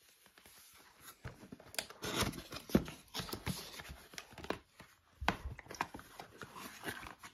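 Cardboard box being handled and its top flaps pulled open: irregular scraping, rustling and knocks of cardboard, with a sharp knock just after a short lull near the end.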